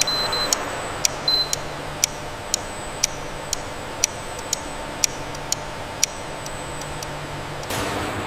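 Regular ticking, about two sharp clicks a second, over a low steady hum, with two short high beeps in the first second or so.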